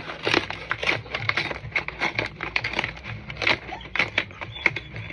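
Plastic bag packaging crinkling and crackling in irregular bursts as it is pulled and torn open.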